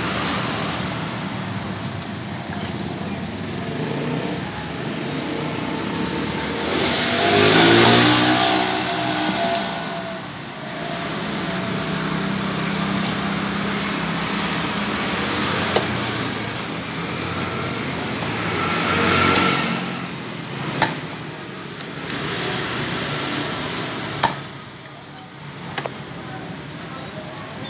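Motor vehicles passing on a nearby road, two of them going by loudly about a quarter and two-thirds of the way in, over steady traffic noise. A few sharp knocks of a cleaver striking catfish on a wooden chopping block stand out in the second half.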